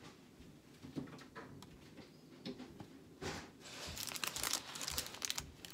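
Baking paper crinkling and rustling as a knife slides under a chocolate-topped bar to lift it onto a plate, starting about three seconds in. A light knock comes about a second in.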